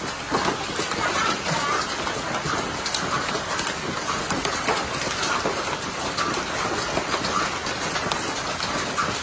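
Hailstorm pelting down: a dense, steady clatter of countless small impacts mixed with the hiss of rain, with sharper individual strikes popping out here and there.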